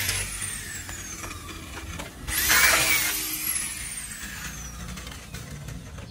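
A handheld electric power tool triggered in a short burst about two seconds in, its motor whining up sharply and then coasting down with a steadily falling whine. At the start, the motor from an earlier burst is still winding down the same way.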